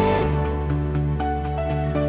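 Background music: held instrumental chords over a steady light beat, the chord shifting about a quarter of a second in.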